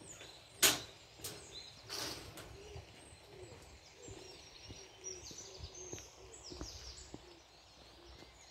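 Footsteps on a metal-grating footbridge, with a few sharp knocks in the first two seconds and softer steps after, while birds chirp.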